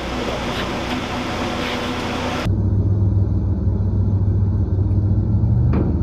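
Heavy engines running: a broad, noisy engine sound with steady hum tones, then after an abrupt cut about two and a half seconds in, a deep steady engine drone.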